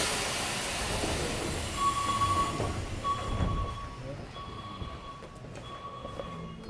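Interior running sound of a Keikyu 1500-series electric train with Mitsubishi GTO-thyristor VVVF inverters. Rumbling car noise fades, then the steady high whine of the traction inverter sounds in several spells from about two seconds in, as the train pulls away.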